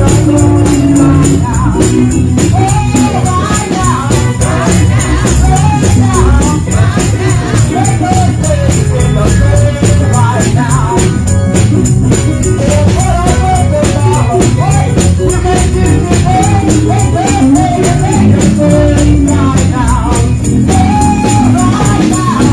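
Gospel music: voices singing together over heavy bass, with a tambourine jingling steadily on the beat.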